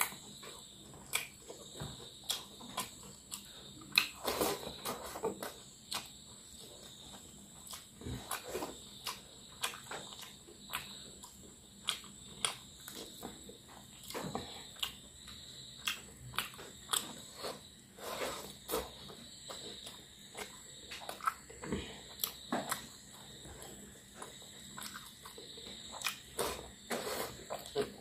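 Eating by hand: fingers mixing rice and pulling fried fish apart on a plate, with chewing and mouth smacks, heard as frequent short sharp clicks and smacks over a faint steady high-pitched tone.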